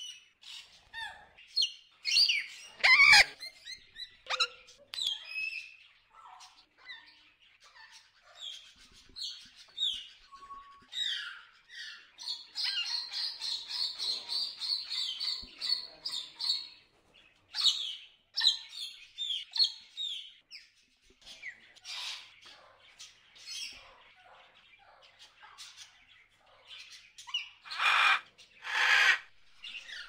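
Wild macaws calling: a busy string of short squawks and chirps, with a fast chattering run near the middle and two loud, harsh squawks near the end.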